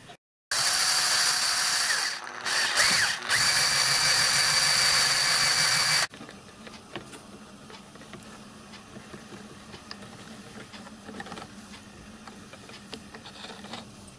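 A power tool runs loudly for about five and a half seconds, dipping briefly twice, then cuts off suddenly. After it come faint, scattered clicks of the miniature lathe's carriage gears as its small T-handle is worked by hand.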